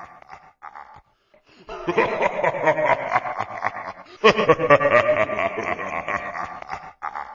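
Laughter in two long runs, the first starting a little under two seconds in and the second just after four seconds.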